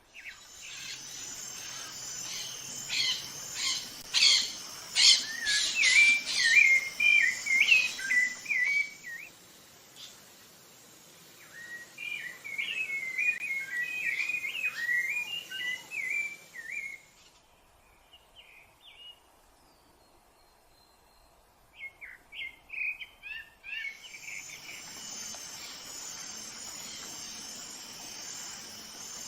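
Rufous-bellied thrush singing: phrases of quick, varied whistled notes coming in bursts separated by pauses. A steady high insect drone runs beneath, dropping out for several seconds in the middle.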